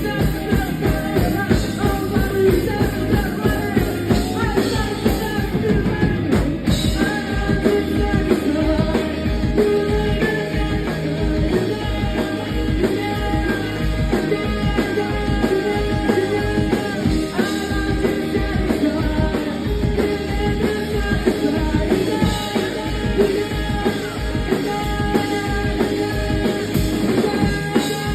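Rock band playing live with a singer, drums keeping a fast steady beat under electric guitars and bass.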